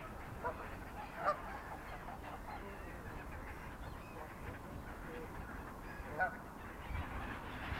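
Gulls and ducks calling at feeding time: scattered short squawking calls over a steady background hiss, the loudest a little after a second in and again near the end.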